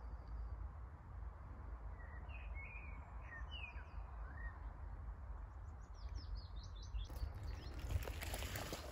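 A small songbird gives a few short chirping notes about two seconds in, over a steady low outdoor rumble. Near the end, rustling and crackling set in.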